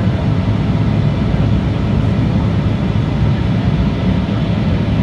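Steady jet cabin noise during the climb after takeoff: the Embraer 175's twin turbofans and the rush of air past the fuselage, mostly a deep even rumble with a fainter hiss above it.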